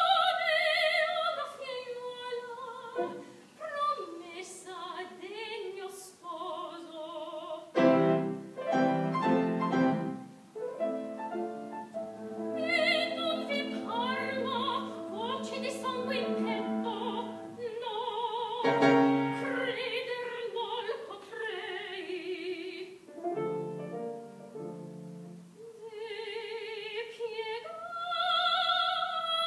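A woman singing opera with vibrato, accompanied by a grand piano, which plays chords under and between her phrases.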